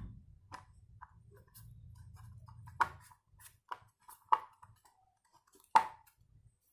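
Hard parts of a motorcycle speedometer clicking and tapping as they are handled and fitted by hand. There are about seven sharp clicks at irregular intervals, the loudest about three, four and a half and six seconds in.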